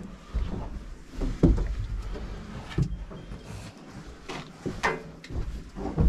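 Irregular knocks and bumps in a metal livestock truck crowded with calves, over a low rumble.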